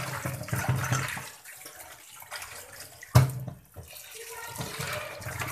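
Tap water running and splashing onto rohu fish pieces in a stainless-steel colander in a steel sink as hands rinse and rub them, with a sharp knock a little after three seconds in.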